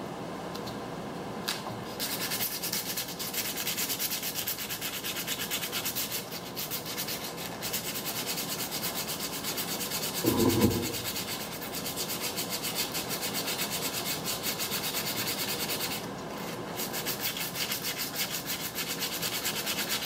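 Hand sanding a steel trailer wheel with sandpaper to take off rust stains and old paint before repainting: rapid, even back-and-forth scratching strokes that start about two seconds in, with a couple of short pauses. A brief low thud about halfway through is the loudest moment.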